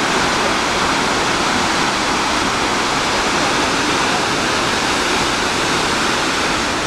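Iguazu Falls: large waterfalls pouring over the cliffs, a loud, steady rush of falling water that does not change.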